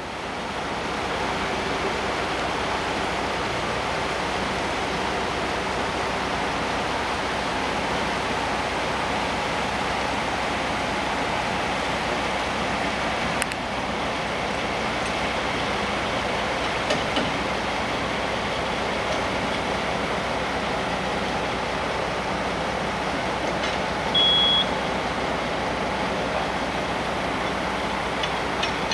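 A large engine running steadily, with one short high beep near the end.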